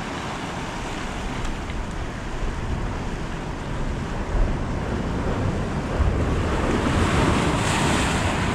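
Sea surf washing against the rocks of a jetty, with wind on the microphone. The surf swells louder over the last couple of seconds as a wave breaks on the rocks.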